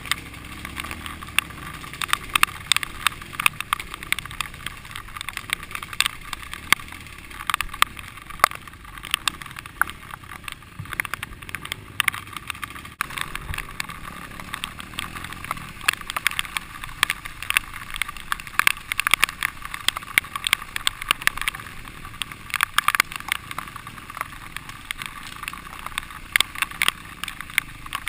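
Dirt bike riding a rough, muddy trail, heard through a helmet-mounted camera: a constant run of irregular clicks and knocks on the camera over a muffled engine and rushing noise.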